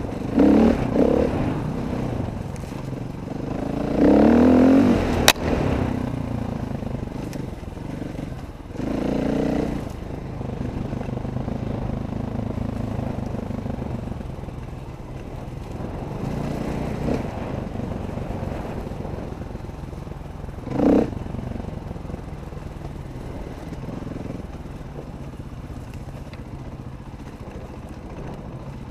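Off-road dirt bike engines running on a trail, the revs rising sharply several times in the first ten seconds and once more about two-thirds of the way through. A single sharp knock sounds about five seconds in.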